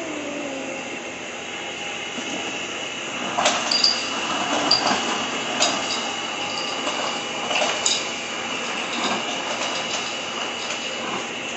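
Ice cubes clinking into a cup: a run of irregular sharp clinks with a brief glassy ring, starting about three seconds in, over a steady background hum.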